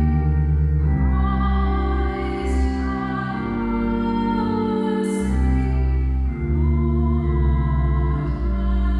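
Slow sacred music: singing over held organ-like notes, the chords changing every second or two above a deep sustained bass.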